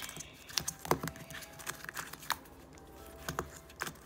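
Irregular plastic clicks and clacks of a puzzle cube's layers being turned by hand during a solve. The cube is stiff to turn because it cannot corner cut.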